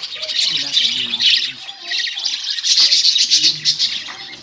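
A colony of budgerigars chattering and squawking all at once, a dense, continuous warble of many birds.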